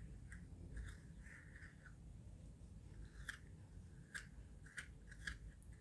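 Faint wet scraping of a spoon scooping the flesh out of a halved kiwifruit, with a handful of soft clicks in the second half.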